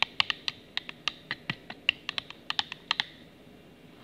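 A stirring utensil tapping against the inside of a small cup of liquid soap as it is stirred: a quick, irregular run of light clinks that stops about three seconds in.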